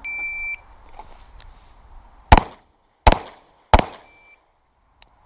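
Electronic shot timer start beep, then three pistol shots: the first a little over two seconds after the beep, following the draw from the holster, and two more in quick succession under a second apart. A short second beep of the same pitch shortly after the last shot marks the end of the 4-second par time.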